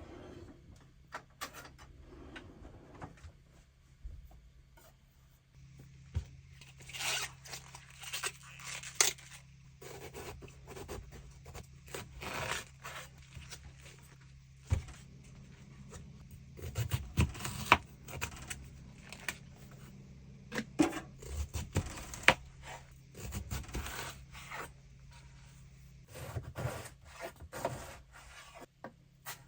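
Close hand-handling sounds: irregular scraping, rubbing and rustling with scattered sharp clicks and knocks, busier from about six seconds in, over a faint steady low hum.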